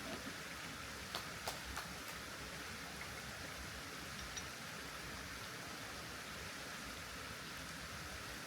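Steady rush of a mountain stream flowing over rocks, with a few light clicks and taps of gear being handled about a second in and once more near the middle.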